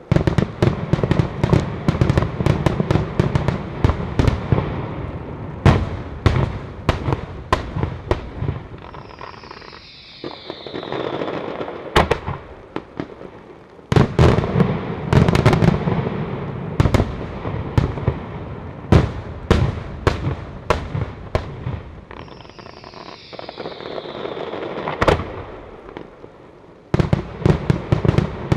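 Daytime ground fireworks battery, a batteria sanseverese of firecrackers laid in lines, going off in long runs of rapid bangs with louder single reports among them. The barrage thins out twice, each time with a falling whistle, and picks up again.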